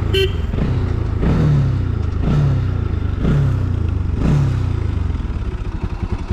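Motorcycle engine blipped about once a second, each rev falling back, then settling into a pulsing idle near the end. A brief high chirp sounds at the very start.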